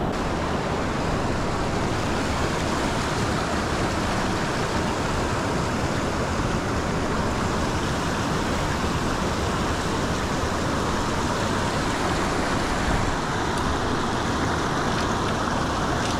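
Fast river rapids rushing and splashing right at the microphone, a steady dense noise of moving water.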